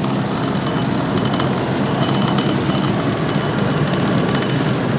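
Off-road side-by-side (UTV) engine running steadily while driving over a gravel dirt trail, with tyre and wind noise.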